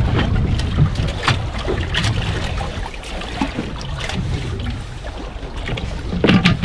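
Steady low rumble of wind and water around a boat at sea, with scattered small clicks and knocks of fishing gear being handled and a louder knock near the end.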